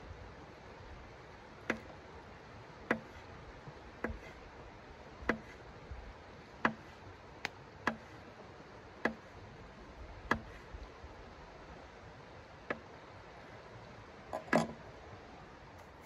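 A folding knife slicing a sausage on a hard tabletop, the blade tapping the table at the end of each cut, about a dozen sharp taps roughly a second apart. A louder knock comes near the end.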